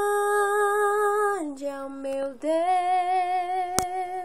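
A woman singing solo, holding the closing notes of a worship song. One long note steps down to a lower one about a second and a half in, then after a brief break she holds another long note with vibrato. A sharp click comes near the end.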